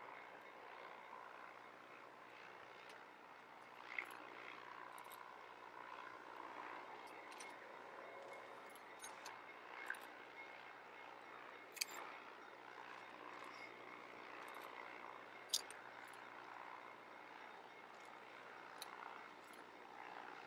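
Faint, steady drone of a distant narrow-gauge diesel locomotive as the train approaches, with a few sharp clicks scattered through it.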